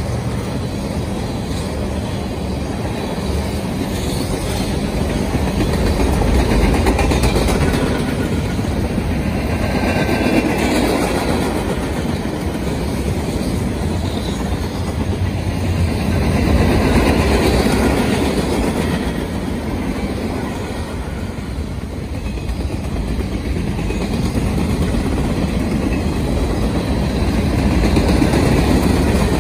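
Freight cars of a passing Norfolk Southern train (tank cars, covered hoppers, then boxcars) rolling by. The steady rumble of their steel wheels on the rails swells and eases in loudness as the cars go past.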